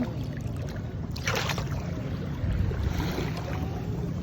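Steady low rumble of wind buffeting the microphone at the seashore, with a brief hiss of surf washing in a little over a second in.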